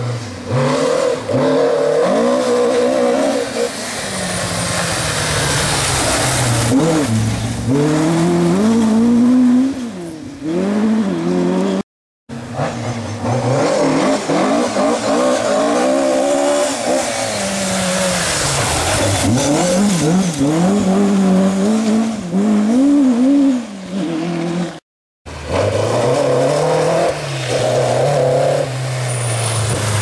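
Rally cars, Mk2 Ford Escorts among them, driven flat out on a loose gravel forest stage. Their engines rev hard and drop back again and again through gear changes and lifts for corners. Three separate runs are heard, with two brief gaps about 12 and 25 seconds in.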